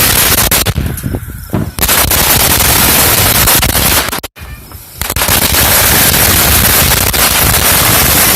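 A 2,000-count string of firecrackers going off in a long, rapid, continuous run of loud pops. It thins briefly about a second in and breaks off for about a second around four seconds in, then goes on.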